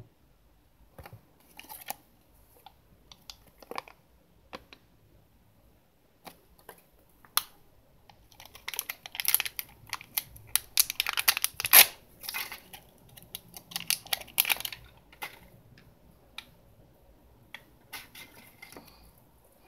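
Crinkling and tearing of a small clear plastic wrapper being pulled open to get at a Kinder Surprise toy, densest around the middle with one sharp tearing crackle. Before and after it, light clicks and rustles of paper and the plastic capsule being handled.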